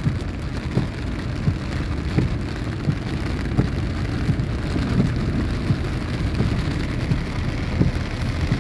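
Heavy rain drumming on the car's roof and windshield, heard from inside the cabin as a dense, steady patter of drops over a low road rumble.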